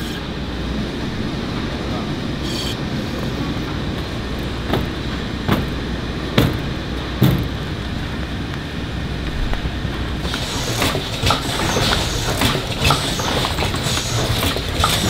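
Steady hum and rumble of factory machinery in an oil filter plant, with a few sharp knocks near the middle. About two-thirds of the way through, a running machine adds busier rapid clicking and rattling.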